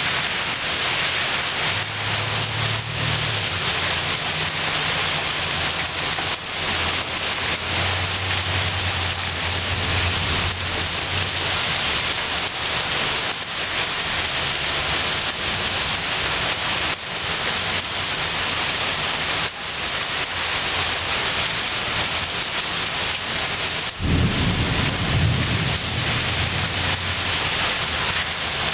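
Heavy rain pouring down in a severe thunderstorm, with low rumbles of thunder a couple of times and a sudden, louder burst of thunder near the end.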